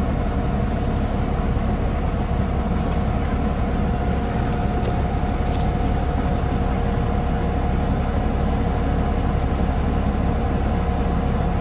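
Concrete mixer truck's diesel engine running steadily, a constant low rumble with a steady whine over it.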